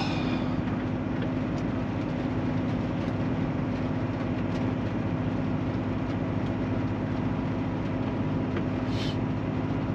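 Steady drone of a Kenworth truck's diesel engine heard inside the cab, a constant low hum over an even hiss.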